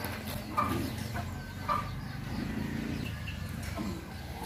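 Chickens clucking: a few short calls in the first couple of seconds.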